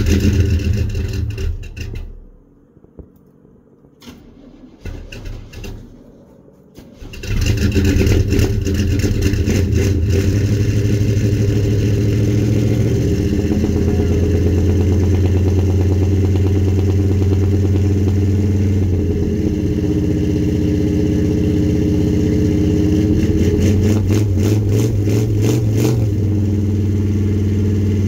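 Engine of a 1978 Chevrolet pickup being cold-started. It cranks in two short tries, then catches about seven seconds in and settles into steady running, going rough and uneven for a few seconds twice.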